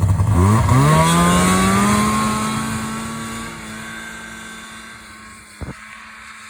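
Snowmobile's two-stroke engine rising in pitch as it accelerates, then holding a steady high note while fading into the distance. A short click near the end.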